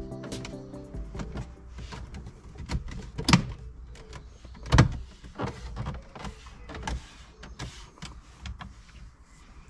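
Plastic dashboard trim of a VW T6 being pressed and clipped back into place around the head unit: a run of clicks and knocks, with two louder knocks about three and a half and five seconds in.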